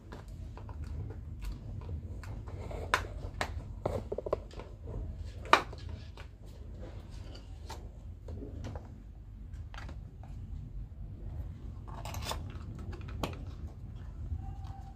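Cardboard packaging being handled: box flaps opened and a small inner carton slid out, a run of light scrapes, rustles and taps, the sharpest tap about five and a half seconds in. A low steady hum runs underneath.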